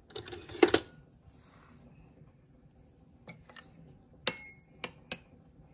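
A metal spoon clinking against a soup bowl: a handful of sharp, separate clinks in the second half, one of them ringing briefly. A short clatter comes near the start, as the spoon is picked up.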